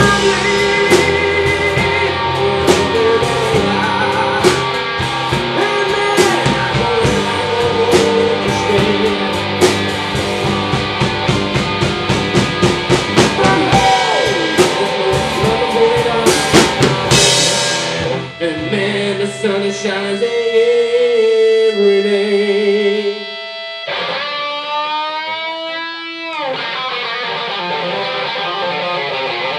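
Live slow blues on electric and acoustic guitars with a steady beat. About two-thirds of the way through the beat drops out and the electric guitar carries on with held notes, including a long bent, wavering note near the end.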